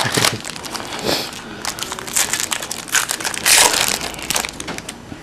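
Wrapper of a 2007 Upper Deck football card pack being torn open and crinkled by hand: a run of crackling rustles that is densest in the middle.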